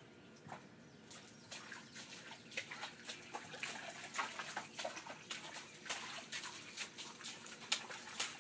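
Children's feet splashing through a shallow rain puddle in wet grass: irregular short splashes that come more often after the first couple of seconds.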